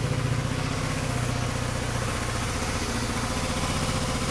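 GY6 scooter's single-cylinder four-stroke engine idling steadily.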